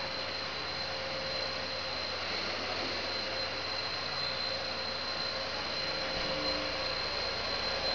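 Steady machinery noise of an HDPE pipe extrusion line running, an even rushing hum with a constant high whine and a lower tone held throughout.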